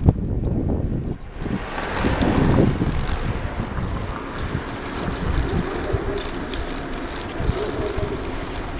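Wind rumbling on the microphone over the rattle and tyre noise of a bicycle rolling along a paved cycle path, with a rushing hiss that builds about a second and a half in.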